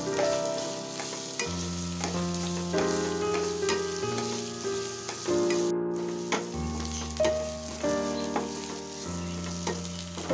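Sliced onions sizzling in hot oil in a kadhai as they are sautéed, with a spatula stirring and scraping the pan in scattered ticks and scrapes. Background music with slowly changing chords plays under it.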